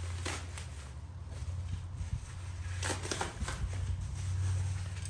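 Parts of a bandsaw circle-cutting jig being handled and taken apart: a few light clicks and rustles, over a steady low hum.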